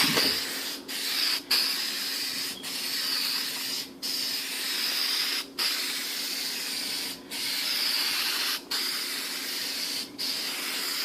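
Spray paint hissing out of the nozzle in long passes, each pass ending in a brief break, about eight breaks in all, over a faint steady low hum.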